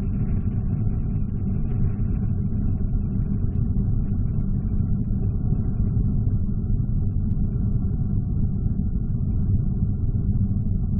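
Vega rocket's P80 solid-fuel first stage burning in the climb after liftoff: a steady low rumble.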